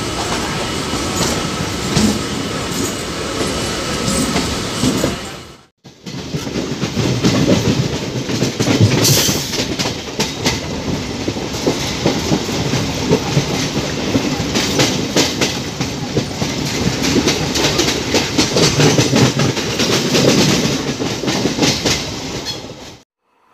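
Ride noise from inside a moving electric multiple-unit (EMU) suburban train by an open window: steady wheel-and-rail noise with many quick clicks from the wheels over the track. Another EMU runs alongside on the next track at the start. The sound cuts out briefly about six seconds in, resumes, and stops abruptly near the end.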